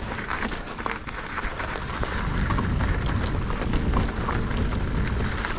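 Mountain bike tyres rolling over a frozen, icy dirt trail: a continuous gritty rolling noise with many small crackles, over a low rumble.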